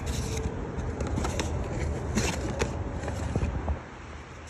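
Handling noise from a new oxygen sensor being taken out of its cardboard box: a string of short scrapes and clicks over a low rumble, easing off near the end.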